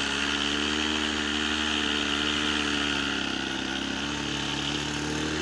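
Radio-controlled model airplane's small engine idling on the ground, its pitch sagging slightly and then rising a little near the end.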